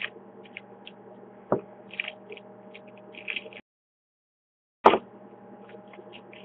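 Booster pack wrapper crinkling in short crackles as it is pried and torn open, with a click about a second and a half in and a sharper snap near five seconds, over a steady electrical hum. The sound cuts out completely for about a second in the middle.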